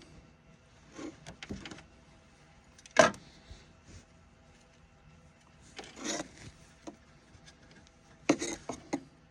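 Hands handling wires and hand tools during a wiring-harness splice: short rubbing and scraping sounds in a few separate bursts, with one sharp knock about three seconds in.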